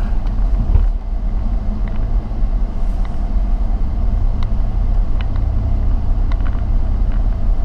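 A car driving slowly over a potholed road: a steady low rumble with a few light knocks.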